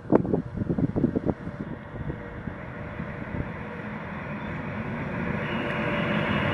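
Freight train approaching along the rails, its rumble growing steadily louder. A quick run of clattering knocks comes in the first second and a half.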